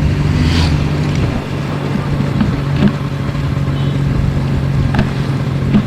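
Yamaha RX 135's two-stroke single-cylinder engine running steadily, with a brief dip in level about a second and a half in.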